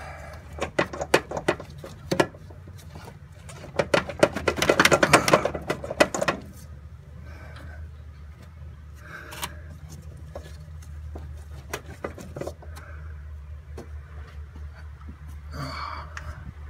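Clicking and rattling of hands and metal parts being worked in a car's engine bay, with a dense run of rapid clicks a few seconds in, then scattered small knocks over a steady low hum.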